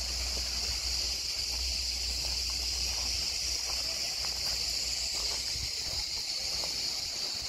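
Steady, shrill chorus of cicadas with faint scattered footsteps. Low wind rumble on the microphone dies away about halfway through.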